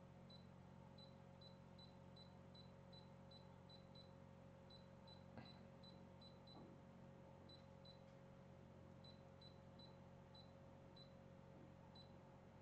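Brother Innov-is BP1530L embroidery machine's touchscreen beeping faintly, one short high beep for each press of its arrow keys, as the embroidery design is nudged into position. The beeps come in runs of about two or three a second with short pauses between.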